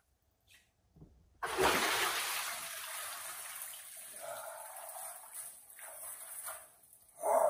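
Ice-bath water splashing as a person suddenly surges up out of an inflatable tub, then streaming and dripping off his body back into the water. A second sharp splash comes near the end as he lifts a leg out over the side.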